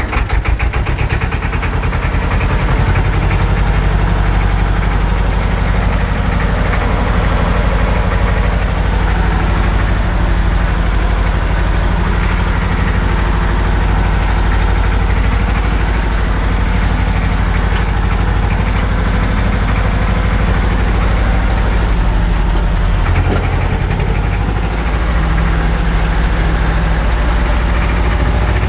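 Old tractor's engine running as it drives along, heard from the driver's seat inside the cab. The separate firing strokes at the start fill in to a steady run within the first couple of seconds, with a brief easing off about three quarters of the way through.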